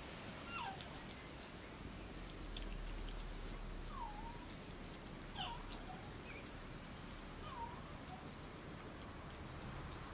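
Cairn Terrier puppies whimpering: about four short, high cries, each sliding in pitch, spread over several seconds.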